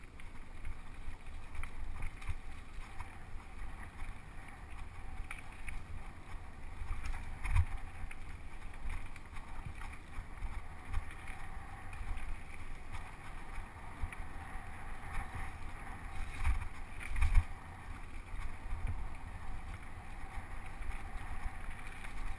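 Mountain bike riding down a bumpy dirt singletrack, heard from a GoPro Hero 2 mounted on the bike or rider: steady wind rumble on the microphone with constant rattles and knocks from the bike over the ground. Two heavier jolts stand out, about a third of the way in and again past two-thirds.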